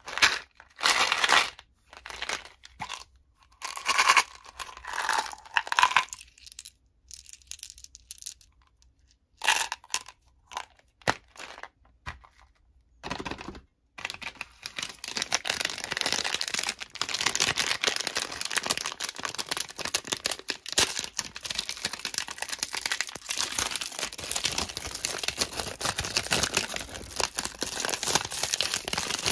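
Hands handling plastic candy containers in short, scattered bursts, then, from about 14 seconds in, the continuous crinkling and tearing of a foil-lined plastic candy wrapper being ripped open.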